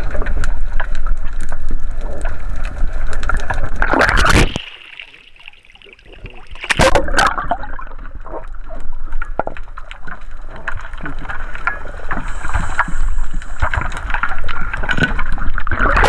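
Water sloshing and splashing around a camera held at the surface among divers in the water. The sound drops away sharply for a moment about four and a half seconds in, then returns with a loud splash about seven seconds in.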